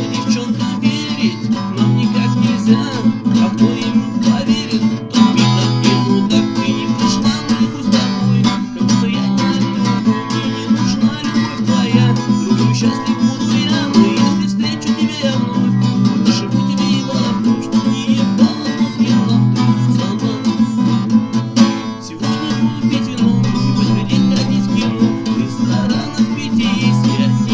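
Acoustic guitar strummed steadily in a song accompaniment, with a brief dip in loudness about 22 seconds in.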